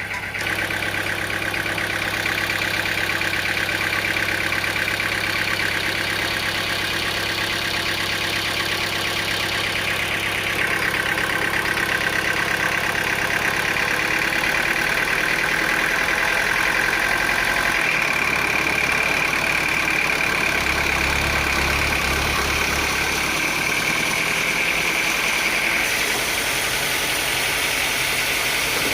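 Sawmill machinery running steadily with an engine-like drone. Its tone shifts about ten seconds in and again near the end.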